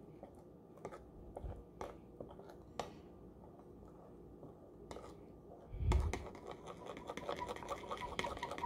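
Spoon stirring a thick gochujang glaze in a bowl, clicking and scraping against the bowl's sides: scattered clicks at first, then quicker, busier stirring from about six seconds in, just after a dull thump.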